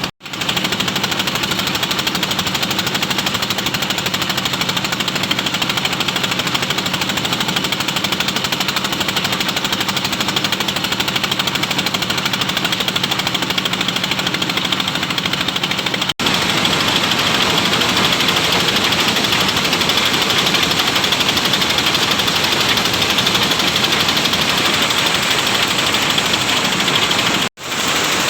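Motorised corn sheller running steadily, with a dense rapid rattling clatter of maize cobs and kernels being threshed inside it. The sound breaks off for an instant twice.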